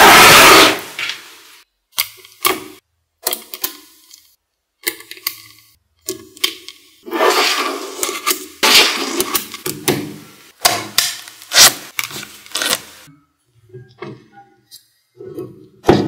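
Small magnetic balls clicking and clattering as slabs of them are handled, snapped together and pulled apart by hand: a loud rattle at the start, then scattered sharp snaps, with a longer stretch of dense clattering around the middle.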